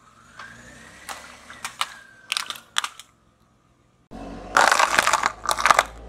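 Water balloons bursting under a rolling car tyre: several sharp pops over the first three seconds, then, after a short silence, a louder stretch of bursting noise.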